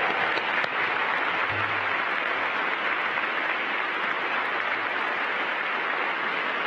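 Audience applauding steadily, a dense clapping with no voices over it.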